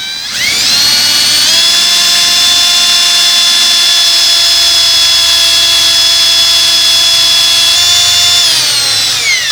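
Electric drill drilling a hole in the camera housing for a 10-32 set screw. The motor whine rises as it spins up, holds steady for about seven seconds, then falls away near the end as the drill stops.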